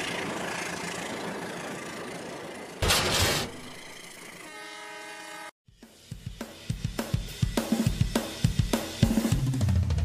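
A hissing noise fading away, a short burst about three seconds in, then after a brief silence a rock drum beat comes in and grows louder toward the end.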